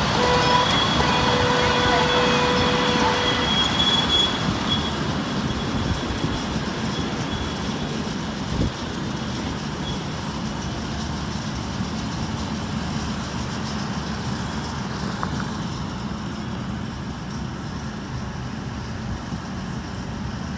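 Ride-on miniature passenger train rolling past on its small-gauge track: a steady rumble and clatter of wheels that slowly fades as the train moves away. A steady high tone sounds over it for the first few seconds, and a single knock comes a little before halfway.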